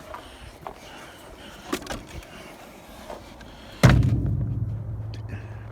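Scrap metal being handled: a few light knocks, then one loud metal clang about four seconds in that rings on with a low hum, slowly dying away.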